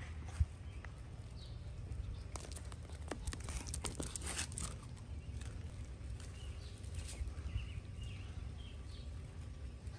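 Outdoor ambience with a steady low rumble of wind on the microphone. About two seconds in, a few seconds of close rustling and scraping as the phone brushes against a dog's fur, then a few faint short chirps.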